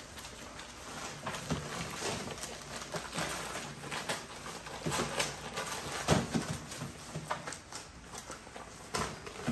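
American bully puppies moving about in stacked wire crates, their paws tapping and scratching on the newspaper-lined crate trays: irregular clicks and knocks with paper rustling, the clearest knocks about five and six seconds in.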